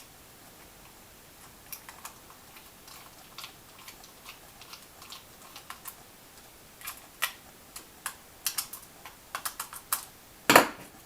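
Scattered small plastic clicks and taps from a computer mouse being handled and put back together, coming faster in the second half, with a louder knock near the end.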